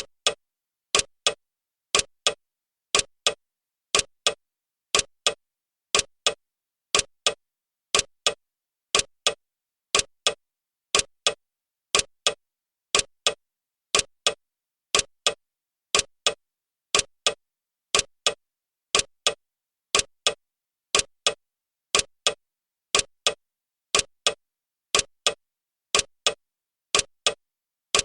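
Clock ticking sound effect of a countdown timer: sharp, evenly paced ticks in a steady rhythm.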